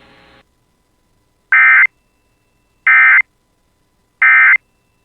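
Emergency Alert System end-of-message code: three short bursts of SAME digital data tones, a rapid buzzing warble, about a second and a half apart, signalling that the alert message has ended.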